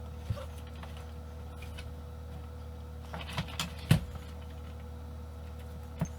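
A few short knocks and clicks of things being handled, the loudest a sharp knock about four seconds in, over a steady low electrical hum.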